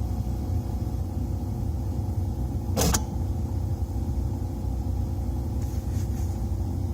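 An 8-track tape player clicking once, loudly, about three seconds in, as it switches program, over a gap in the music filled by a steady low rumble.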